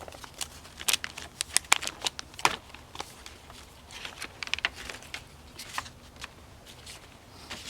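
Packaging and papers rustling and crinkling as they are handled: an irregular string of short crackles and clicks.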